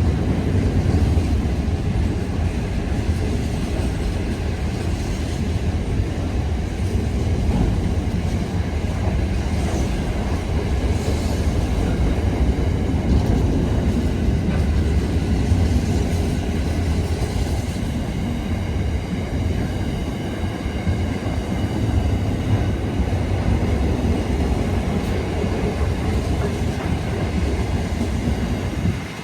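Long freight train's wagons rolling past, a steady heavy rumble of steel wheels on rail.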